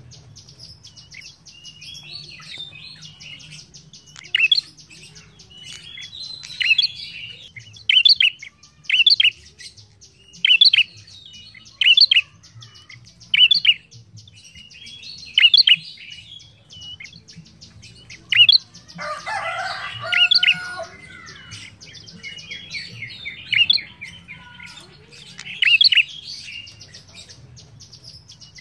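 Tailorbird calling: sharp, loud notes repeated every second or two, with softer chattering between them, over a steady high ticking trill. About two-thirds of the way through, a lower warbling phrase from another bird comes in for a couple of seconds.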